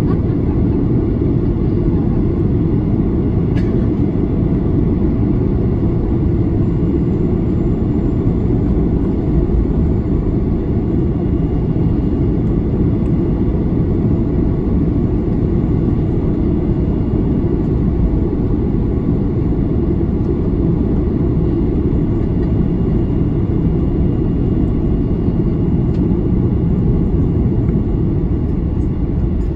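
Cabin noise of a Boeing 737-800 taxiing, heard from inside the cabin: its CFM56-7B jet engines at taxi power and the rolling airliner make a steady low rumble, with a faint steady high whine above it.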